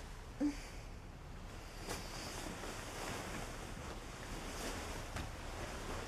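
Quiet room tone with a steady hiss; about half a second in, a woman gives a brief low hum as she stretches awake. A few faint soft clicks follow.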